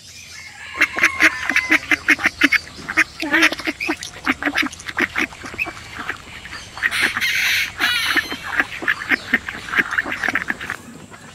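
White call duck quacking in a quick run of short, repeated calls, starting about a second in and going on almost without a break for some ten seconds.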